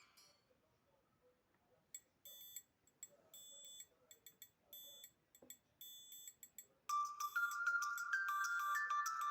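Honor 6A smartphone alarm tone playing. After about two seconds of near silence come faint, high-pitched short notes, and about seven seconds in a loud electronic ringtone melody starts.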